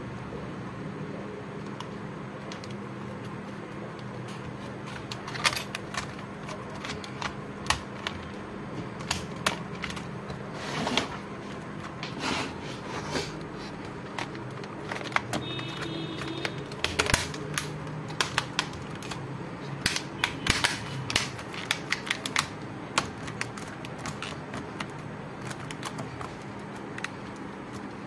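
Irregular sharp plastic clicks and taps as a replacement Lenovo ThinkPad T580 laptop keyboard is pressed down into place and its keys pushed, starting about five seconds in and coming thickest in the second half, over a steady low hum.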